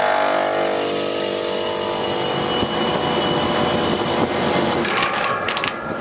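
Refrigeration condensing unit with a Copeland scroll compressor running steadily just after switch-on, pumping the system down. Near the end there is a brief fast rattle.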